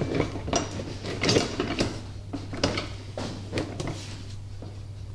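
Irregular metal clinks and clattering knocks as the seat back and its bolts are handled onto a golf cart's steel rear seat frame, dying down near the end.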